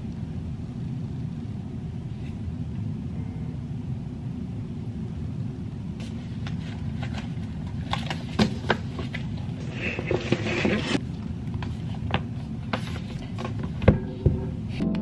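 Sheets of paper being handled and shuffled at a table, with scattered taps and knocks, and a sharp knock near the end. Under it all runs a steady low rumble of room background noise.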